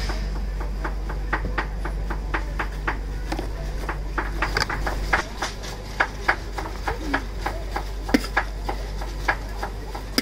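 Irregular light clicks and scrapes of a plastic rice paddle and serving spoon against a foam takeaway box, a rice cooker pot and a large pan, as rice and then aubergine miso stir-fry are scooped into the box, over a low steady hum.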